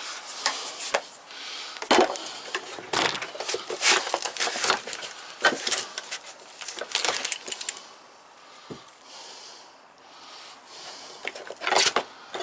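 Handling noise: a string of sharp clicks, knocks and light rattles as a hand tool is put away in its case and tools are set down, with a quieter stretch about two-thirds of the way through.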